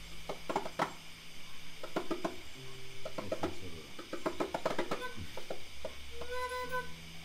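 Hand drums tapped in scattered, unrhythmed strokes, with a short held pitched note near the end.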